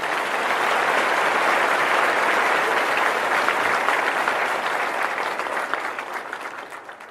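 Applause from many hands, a dense steady clapping that thins a little near the end.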